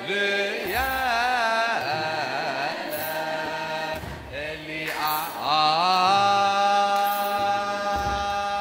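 Ethiopian Orthodox wereb chant sung by a church choir: melismatic lines with wavering, ornamented notes in the first few seconds, then a long held note from about six seconds in.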